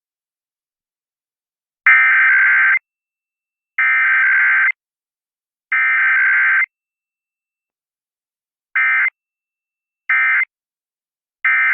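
Emergency Alert System SAME data bursts from a weekly test broadcast: three one-second bursts of two-tone digital warble a second apart, then, after a pause, three short end-of-message bursts.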